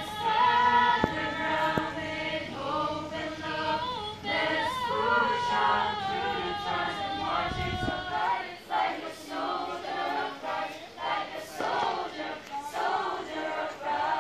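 Choir of men's and women's voices singing a song together in rehearsal.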